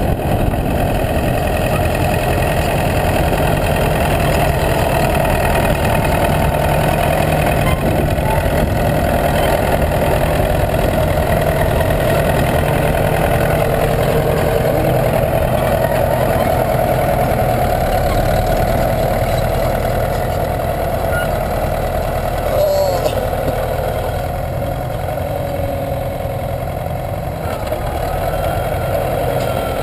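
Bulldozer's diesel engine running steadily, a little quieter for a stretch in the second half.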